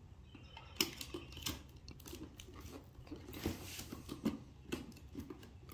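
Dull utility razor knife cutting and scraping through packing tape on a cardboard box, in scattered small clicks, scrapes and short tearing sounds.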